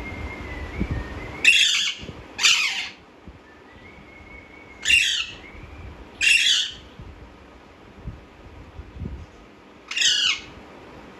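Pet parakeet giving five short, harsh screeching calls: two in quick succession, two more a few seconds later, and a single one near the end. A faint thin whistle is heard before the first pair.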